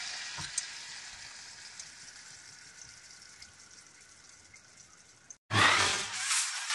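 Pork and black fungus stir-fry in chilli bean sauce sizzling in a wok, the hiss fading steadily. About five and a half seconds in, after a brief silence, a loud whooshing sound effect cuts in.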